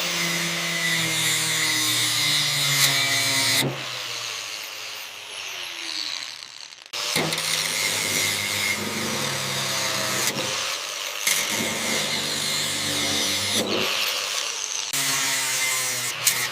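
Electric power tool whirring in several short cut-together takes. About four seconds in, its pitch falls as it spins down, then it starts again.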